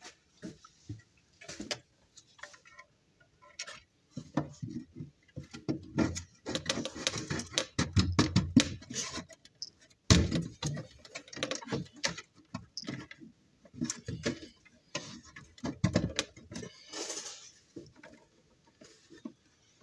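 Handling noise: irregular clicks, knocks and rustles as hands work on a 3D-printed plastic electronics box on a wooden panel. The knocking is busiest in the middle, with the loudest knock about ten seconds in.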